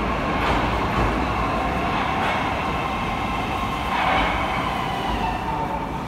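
An 81-722 'Yubileyny' metro train rolling into the station and slowing, with a steady electric whine of several tones over wheel rumble. A few faint wheel clicks come over rail joints.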